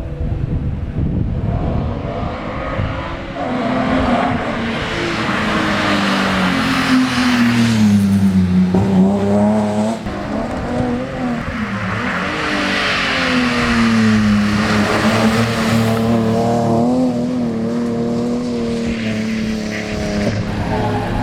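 Rally car engine accelerating and lifting off as the car drives through the stage, its pitch rising and falling several times with gear changes. It is loudest as it passes, once around the middle and again a few seconds later.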